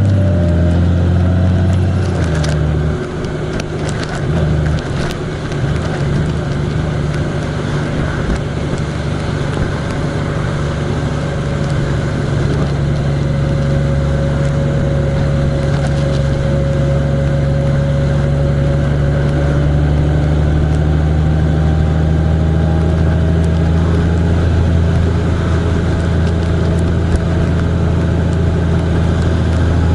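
A vehicle's engine running steadily while driving on the road, a strong low hum that dips and shifts about two to three seconds in, then holds even.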